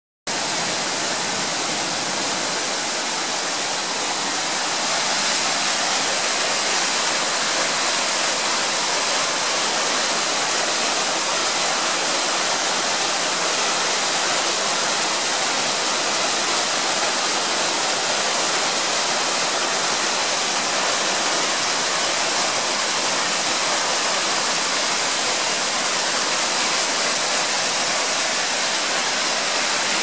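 Mountain stream cascading down a small waterfall and over boulders: a steady rush of water, a little louder from about five seconds in.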